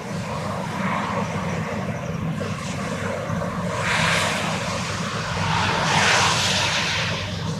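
Morning city ambience: a steady low engine drone with a hum, and two swells of rushing noise about four and six seconds in, like vehicles passing.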